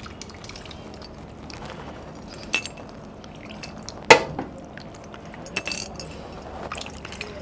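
Metal spoon and aluminium pot clinking as curry gravy is poured and scraped out over steel plates: a few sharp clinks over a soft background, the loudest about four seconds in.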